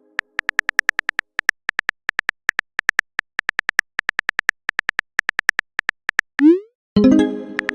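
Phone-keyboard typing clicks from a texting app, about six quick taps a second, followed by a short rising swoop of a message being sent and a bright chime that rings out near the end.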